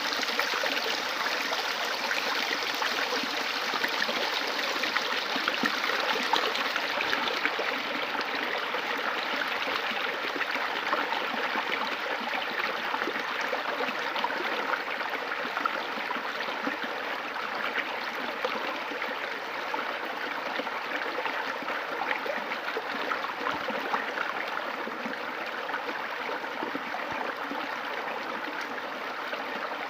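River water flowing over rocks, a steady rushing with fine splashing and gurgling.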